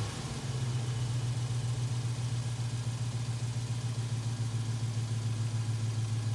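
Jeep Wrangler JK's swapped-in 5.7 Hemi V8 idling steadily with an even low hum, heard from near the open engine bay.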